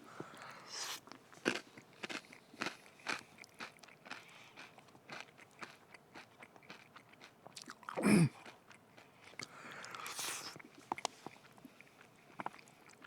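Close-up chewing and crunching on crisp crackers, in many short irregular crunches. About eight seconds in there is one louder, brief, low sound falling in pitch, like a short hum or grunt.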